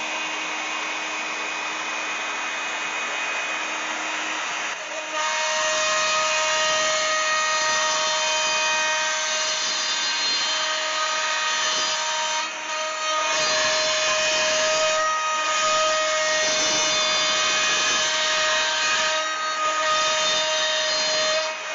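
Makita compact router spinning on a Shapeoko XXL CNC machine as it cuts a hole in plywood, a steady whine over the noise of the bit in the wood. It gets louder about five seconds in, as the bit bites into the board.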